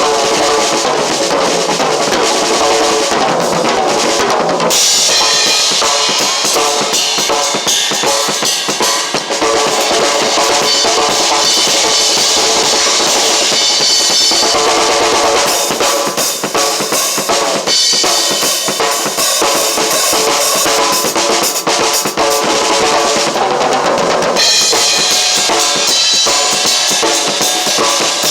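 Drum kit played continuously, bass drum and snare under a wash of cymbals. The cymbals grow louder about five seconds in, ease off around the middle, and build again near the end.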